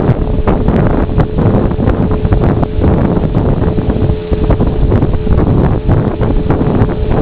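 Motorboat under way, its engine running with a steady hum, heavily buffeted by wind on the microphone with frequent sharp gusts and knocks.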